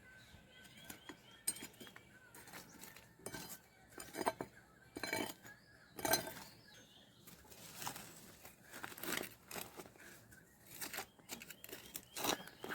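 Kitchen utensils clinking and knocking against pots and dishes, in irregular single strikes roughly once a second.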